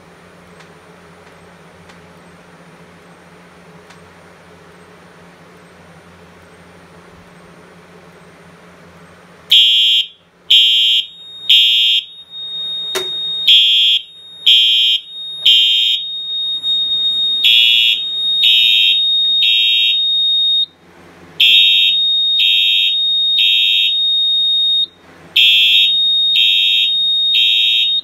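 Wheelock EH-EL1-WM-24 electronic fire alarm horn going into alarm after a magnet trips the smoke detector. It sounds the code-3 temporal pattern: three loud blasts, a pause, then three more, repeating. A low hum comes before the horn starts about a third of the way in, and a steady high tone runs under the blasts.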